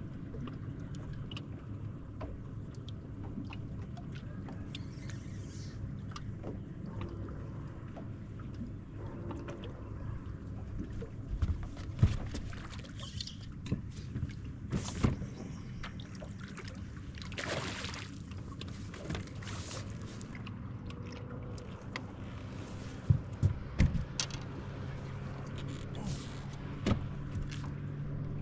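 Steady low hum and water noise aboard a bass boat, with several sharp knocks and thumps on the hull and deck, and a brief rush of noise about halfway through.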